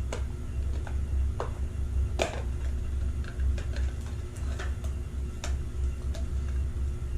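Scattered, irregular light clicks and taps of a plastic speed cube and its packaging being handled, over a steady low hum.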